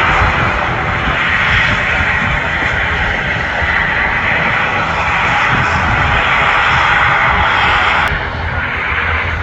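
Turboprop engines of an ATR 72-600 airliner running with a steady propeller drone. The sound drops suddenly in loudness about eight seconds in.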